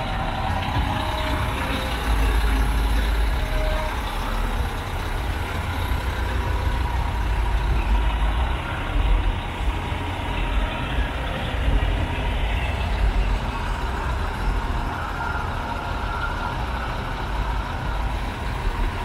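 Heavy diesel trucks running, a steady deep rumble with a noisy wash over it.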